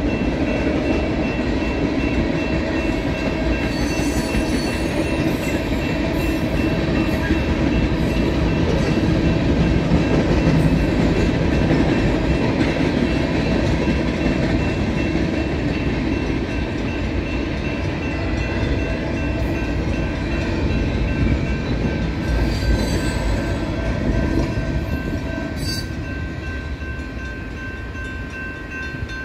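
Freight train cars rolling past a grade crossing, a continuous rumble and clatter of wheels on the rails. The sound eases off over the last few seconds as the tail of the train goes by.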